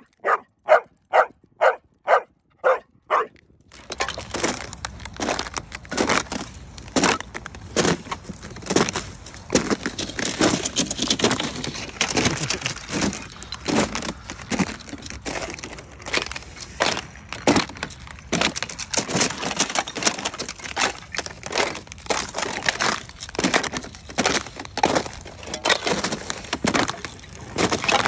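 Boots crunching through thin sheet ice over waterlogged grass, the ice cracking and breaking with each step. This follows a run of about eight loud, evenly spaced sharp sounds at the very start.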